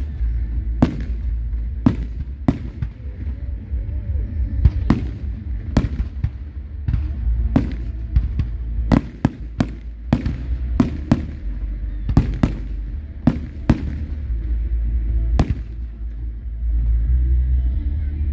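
Fireworks display: about twenty sharp bangs of exploding shells in irregular succession, some in quick clusters, over a steady low rumble.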